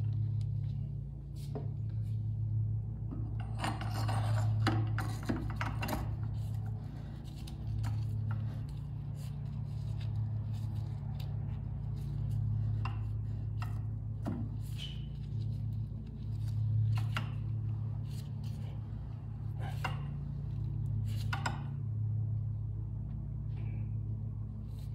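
Hands working on motorcycle fork parts: intermittent rubbing and scraping with scattered small clicks, loudest about four seconds in and again about twenty seconds in, over a steady low hum.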